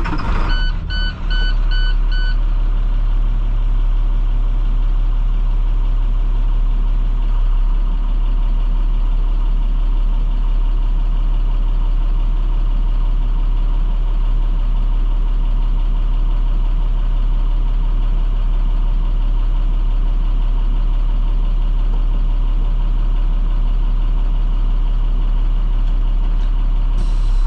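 School bus's MaxxForce DT inline-six diesel settling into a steady idle just after a cold start. In the first couple of seconds a warning beeper beeps five times, and a hiss starts near the end.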